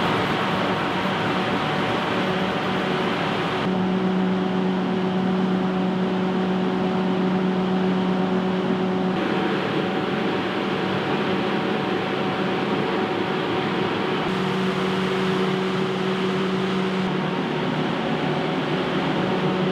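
A machine running steadily, a hiss with a fixed-pitch hum, broken by abrupt changes where shots are cut together.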